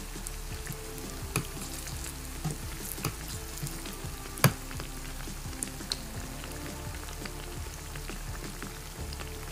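Churros deep-frying in hot oil, a steady crackling sizzle with scattered small pops. A wire spider skimmer moves through the oil to turn them, with one sharp knock about halfway through.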